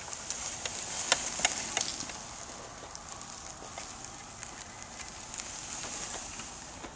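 Dry grass crackling and rustling as a power wheelchair drives through it. Sharp snaps stand out about a second in.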